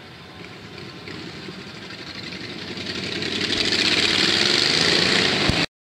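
Road vehicle engines growing steadily louder as traffic moves off and comes close, then the sound cuts off abruptly near the end.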